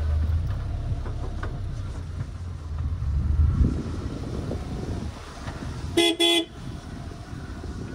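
A car horn sounds two short toots in quick succession about six seconds in, over a low rumble.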